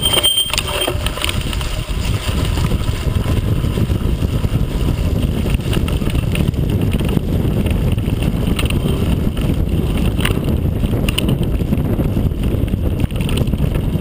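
Mountain bike rolling fast down a rough dirt trail: steady wind rumble on the microphone, with the bike rattling and knocking over the ground.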